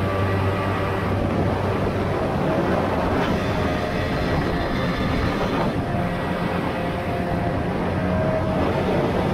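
Tohatsu M40C 40 hp two-stroke outboard running steadily at speed, pushing a light 14 ft aluminum boat, mixed with the rush of water and spray against the hull.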